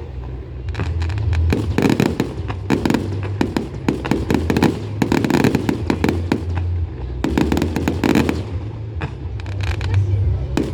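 Fireworks display going off: rapid volleys of bangs and crackles that come in waves a second or two long, with short lulls between them.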